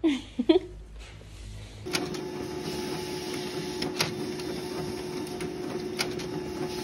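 Office printer running while printing worksheets: a steady hum, with a sharp click about every two seconds.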